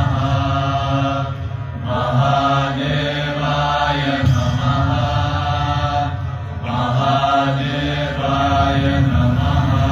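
Chanted mantra, with voices intoning phrases a couple of seconds long over a low sustained drone. There are short breaks between phrases, about two and four seconds in and again near seven seconds.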